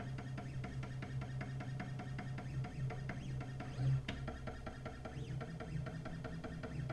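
CNC 3018 PRO stepper motors driving a laser engraving head in a raster pass: a steady low hum with rapid, even ticking, as on a printer. A slightly louder knock comes about four seconds in.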